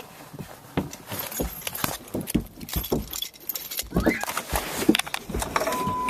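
Rapid clatter of knocks and clicks with a jangling, like keys or small metal objects being handled; a steady beep tone starts near the end.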